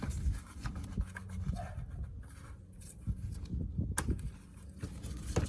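Rubbing and handling noise as a Toyota Corolla's ignition coil and its rubber boot are worked up out of the spark plug well, with scattered soft ticks and two sharp plastic clicks, one about four seconds in and one near the end.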